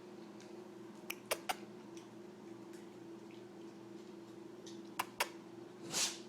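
A husky hiccuping: short sharp clicks, three in quick succession about a second in and two more around five seconds, then a longer, breathier hic near the end.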